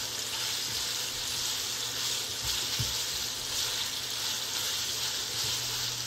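Pieces of Italian sausage sizzling steadily in their own fat in a non-stick skillet, stirred with a spatula, with a few soft scrapes and knocks against the pan.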